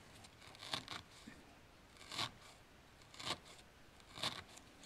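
Felting needle stabbing through yarn into a felted wool ball: four faint scratchy pokes about a second apart.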